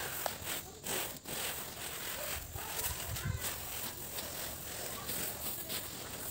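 Bare feet shuffling and scuffing through a thick layer of drying paddy (unhusked rice grain) on a tarp, the grain rustling and hissing with each step as it is spread and turned over.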